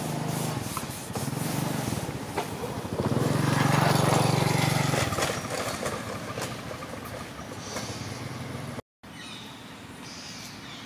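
An engine running steadily with a low hum. It swells to its loudest a few seconds in, then fades away.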